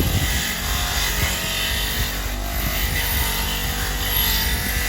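Electric wire brush wheel running steadily, scrubbing the dust and rust off an old spanner to bring up the maker's name.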